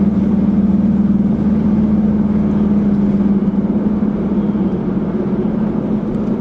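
Steady drone of a car cruising at highway speed, heard from inside the cabin, with one constant low hum over the road noise.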